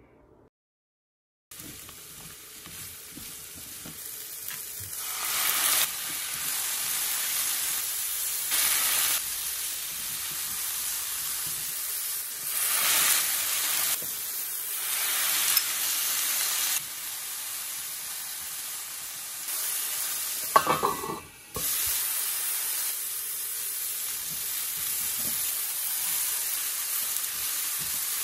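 Cauliflower florets sizzling steadily in a hot nonstick frying pan, starting about a second and a half in. The sizzle surges louder several times as water is added to steam-cook them, and a spatula stirs near the end.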